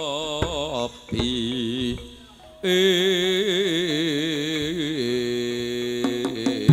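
Javanese tayub music with gamelan: a solo voice sings long, wavering notes with heavy vibrato, broken by a short gap about two seconds in. Near the end the voice gives way to steady ringing notes and a few struck notes from the gamelan's gongs and metallophones.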